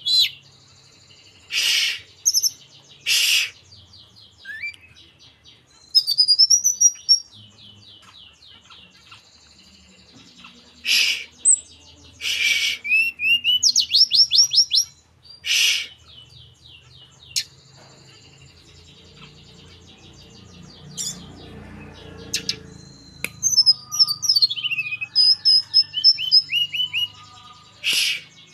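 A tledekan gunung (a small Indonesian mountain flycatcher) singing in repeated phrases. Its high thin whistles and fast slurred trills are broken by short harsh scratchy bursts.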